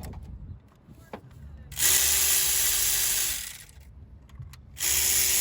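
A cordless power tool spinning out a long bolt, in two short runs with a steady motor hum: the first lasts about a second and a half, the second starts near the end.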